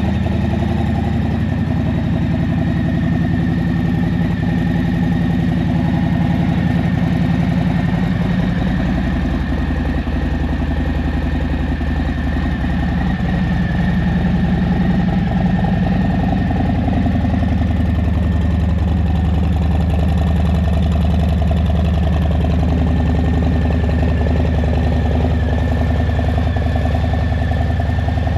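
Harley-Davidson Low Rider S V-twin engine running steadily, its low exhaust note shifting down and back up in pitch a few times.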